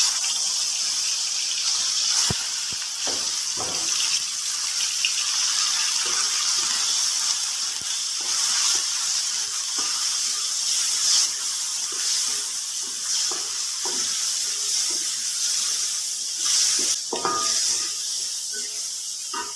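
Meat pieces sizzling in hot oil in an aluminium wok, a steady hiss, with now and then the knock and scrape of a wooden spatula stirring them against the pan.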